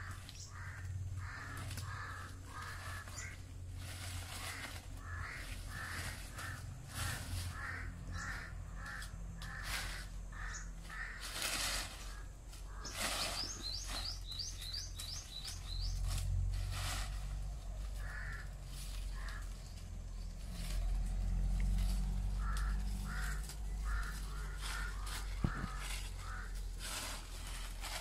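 A bird calling in long runs of short, harsh, repeated calls, about two to three a second, with a brief high twittering series from a smaller bird about halfway through. A steady low rumble and a few sharp knocks lie underneath.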